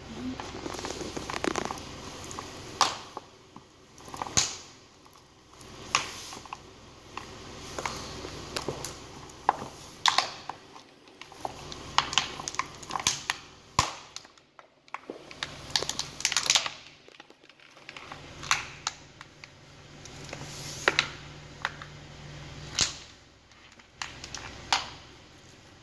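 Flat leather boots stamping on and crushing raw chicken pieces on a concrete floor: sharp cracks and crunches every second or two, with crackling in between.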